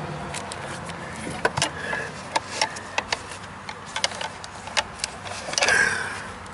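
Irregular light clicks and knocks of hands and gear being handled beside a boat's engine, over a steady low hum, with a louder rough scraping rustle about five and a half seconds in.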